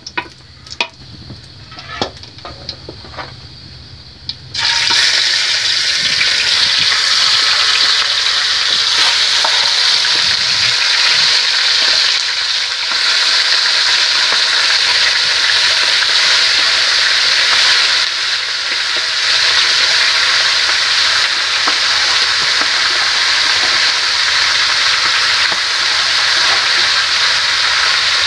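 A few light clinks of a spoon against an aluminium pot, then about four and a half seconds in a loud, steady sizzle starts suddenly as free-range chicken pieces go into hot pork lard and begin to fry.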